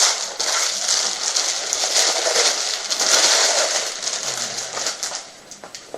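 Packaging crinkling and rustling as a new card mat is unwrapped and handled, dense and continuous, then dying down to a few light crackles near the end.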